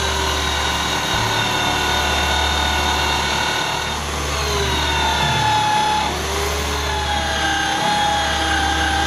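Angle grinder mounted on the bench, running steadily while a small brass casting is pressed against its spinning wheel. Its whine dips in pitch and recovers several times as the piece is worked.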